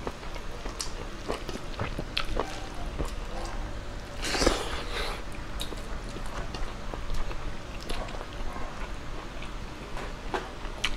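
Close-miked mukbang chewing: a person eating chicken adobo and rice by hand, with many small wet mouth clicks and smacks. A louder rushing noise lasts about a second a little past four seconds in.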